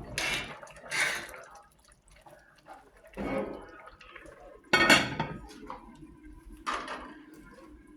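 Kitchen utensil scraping and knocking in a cooking pot of rice, in five short bursts spread over several seconds.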